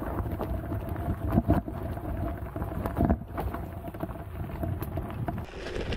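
Gravel bike descending a rough gravel track: tyres rumbling over stones, with irregular knocks and rattles from the bike and wind on the microphone.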